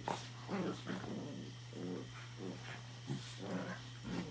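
Pembroke Welsh corgi puppies play-growling: a series of short, low growls and grumbles while they wrestle.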